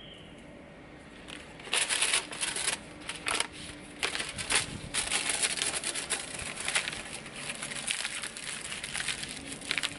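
Mallow stems, leaves and seed heads rustling and crackling in irregular bursts as the plant is pulled and broken up by hand. The sound starts about a second and a half in.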